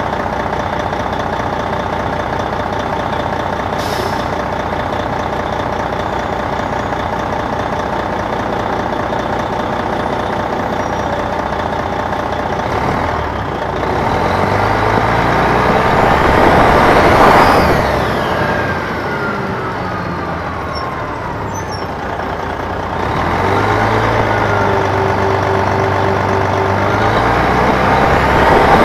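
Detroit Diesel Series 60 engine of an MCI D4000 coach, heard from the rear seats: running steadily at idle for about the first 13 seconds, then pulling away with the engine pitch rising to a peak and falling, easing off, and building again twice toward the end.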